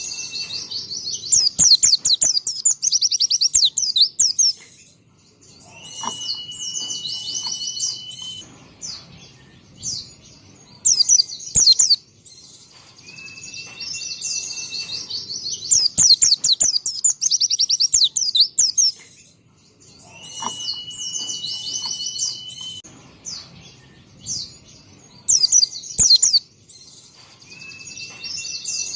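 White-eye (pleci) singing: runs of rapid, high twittering trills lasting a few seconds each, broken about every seven seconds by a single level whistle held for a second or two.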